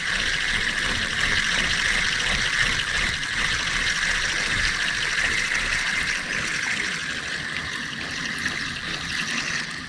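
Steady, high-pitched insect chirring: a continuous buzz with a fast pulse, easing off slightly in the second half.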